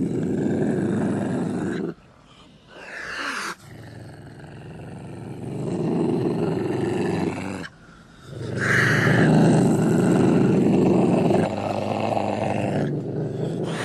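Ocelot calling in several long bouts, with brief pauses about two and eight seconds in.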